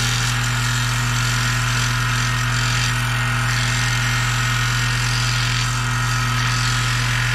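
Power wire brush running steadily against metal: a steady low motor hum under a continuous hiss of the wire bristles scrubbing the metal to a brushed finish.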